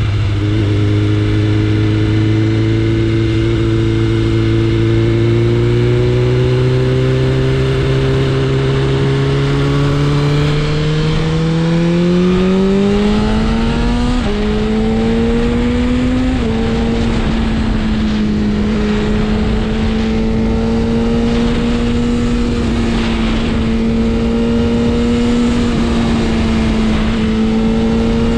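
BMW S1000RR inline-four engine under way, its note climbing slowly for about twelve seconds, then more quickly through two upshifts around the middle, before settling into a steady cruise.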